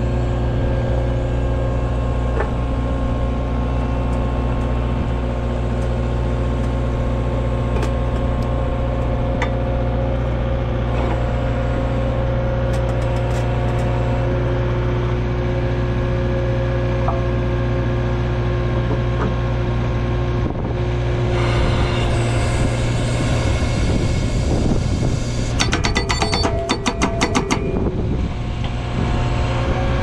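Skid steer engine running steadily, getting louder about two-thirds of the way through, with a short run of rapid knocks near the end.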